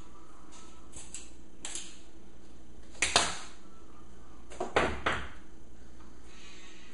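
A kitchen knife and utensils clicking and knocking on a plastic cutting board: a few light clicks, then two louder sharp knocks, the first about three seconds in and the second about five seconds in.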